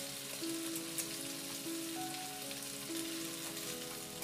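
Chicken pieces sizzling on a hot grill pan, a steady hiss, under soft background music with long held notes.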